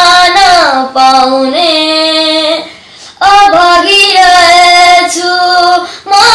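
A boy singing a Nepali film song, holding long notes and sliding between pitches. He breaks off for about half a second near the middle, then goes on. No accompaniment can be heard.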